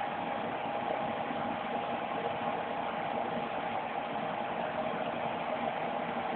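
Suzuki GSX-R motorcycle engine idling steadily, with a thin steady whine over an even hum.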